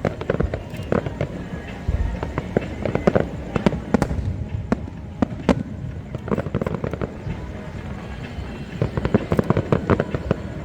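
Aerial fireworks going off in quick succession: many sharp bangs and crackling bursts, with a deep thump about two seconds in and thicker clusters of cracks in the middle and near the end.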